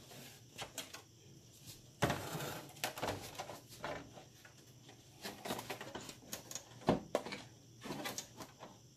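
Plastic rear case of a flat-screen TV being lifted and turned over by hand: scattered clicks, scrapes and rustles, with a sharper knock about two seconds in and another about seven seconds in.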